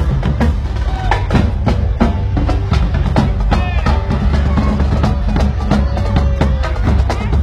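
Loud parade music from the passing floats, with a steady percussive beat and heavy bass, and voices over it.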